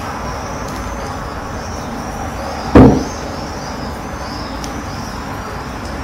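Steady road-traffic noise, with a person's short low 'mm' hum about three seconds in.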